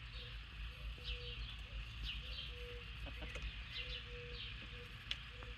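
Chickens in a poultry yard: many short, high, falling peeps and chirps, several a second, with no crow, over a low rumble.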